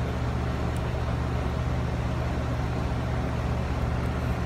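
A steady low mechanical hum, like a motor or engine running at idle, holding an even level throughout.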